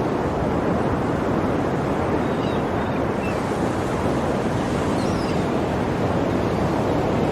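Sea waves washing on the shore in a steady, continuous rush of surf.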